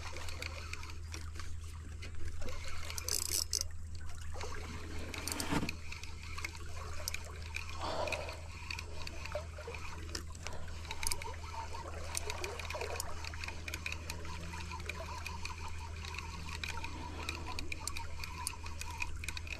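Water trickling and splashing, with a steady low hum underneath and scattered small clicks and knocks.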